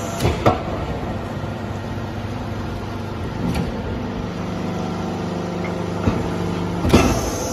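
Hydraulic shisha cube charcoal briquette press running: the steady hum of its hydraulic power unit, with a lower steady tone joining about halfway through and several sharp metal clanks from the press and pusher, two near the start and more near the end.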